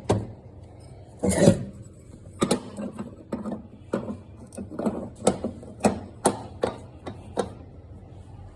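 Metal clicks and knocks from tools working on a gas range burner as it is changed: a louder scraping rattle about a second in, then about a dozen sharp taps at irregular intervals.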